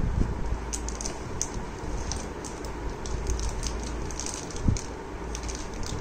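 Plastic bag around a wireless mouse crinkling in irregular crackles as it is handled and lifted out of a cardboard box, with one dull thump a little before the end. A steady low rumble runs underneath.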